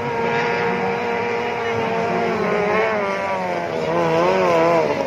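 Racing speedboat's outboard engine running at high revs, a steady high whine that begins wavering up and down in pitch about halfway through.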